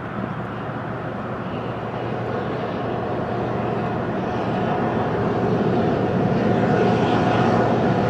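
Diesel locomotives of an approaching Union Pacific train, their engine sound growing steadily louder.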